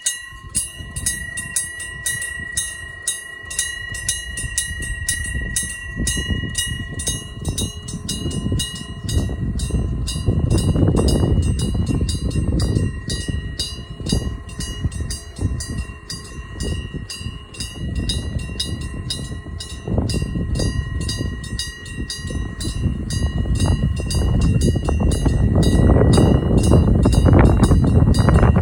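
Railway level-crossing warning bell ringing its rapid, even 'kan-kan' strokes. A train's rumble grows under it and is loudest near the end as the train comes up to the crossing on the Hokuriku Railroad Ishikawa Line.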